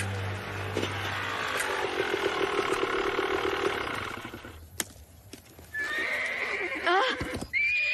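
Horse neighing: one long pulsing neigh that falls in pitch in the first half, then high, quavering whinnies near the end. The horse is agitated.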